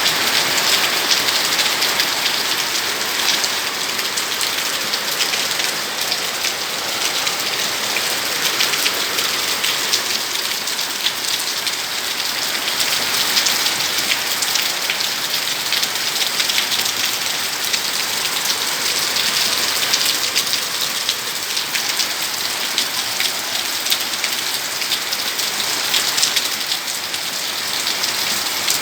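Heavy rain falling steadily, a dense even hiss with many fine drop patters.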